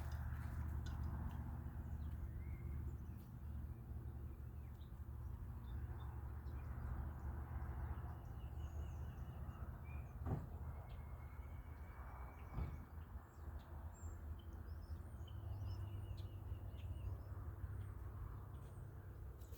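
Steady low background rumble with faint, short bird chirps scattered through it, and two soft thumps about halfway through.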